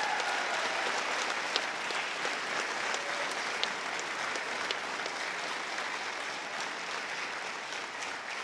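Audience applauding, a dense patter of clapping with a trailing cheer at the start, slowly dying down toward the end.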